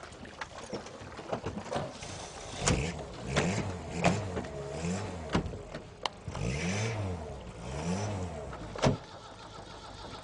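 A car engine revving up and down over and over, its pitch rising and falling about once a second, with several sharp knocks in between.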